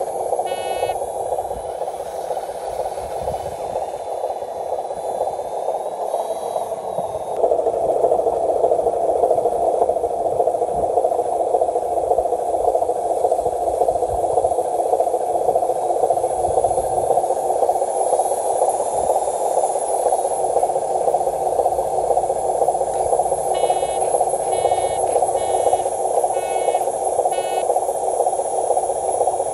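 RC dump truck running with a steady, narrow-sounding engine-like drone that gets louder about a quarter of the way in. Near the end a repeating beep, like a reversing alarm, sounds about six or seven times.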